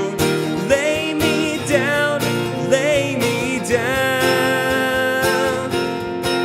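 A man singing a worship song over a strummed acoustic guitar, holding one long note just past the middle.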